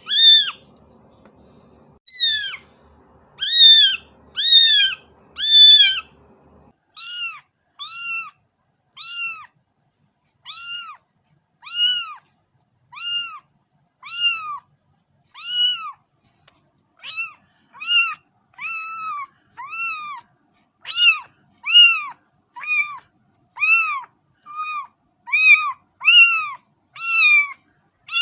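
A cat meowing over and over: short, high meows about one a second, each rising and then falling in pitch. About seven seconds in, the background hiss drops away and the meows go on a little softer and lower.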